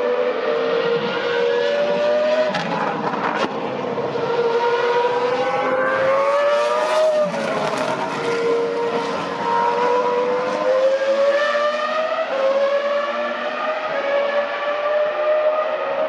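Former Formula One car, a Toro Rosso, running at speed on a race track: a continuous high-revving engine note that climbs and drops in pitch several times as the driver works the throttle and gears.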